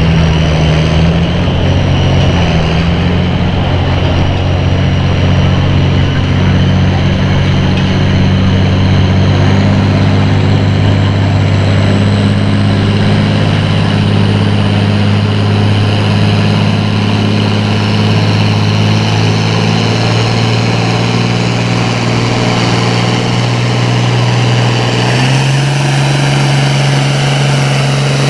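Farm tractor engine running loud and steady at high revs, as under load pulling the sled, its pitch stepping up about three seconds before the end, with a faint high whistle slowly rising above it.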